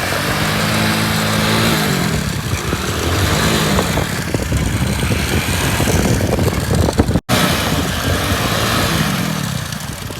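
Motorcycle engine running while the bike is ridden, its pitch rising and falling several times with the throttle, over a steady rush of wind noise. The sound drops out for an instant about seven seconds in.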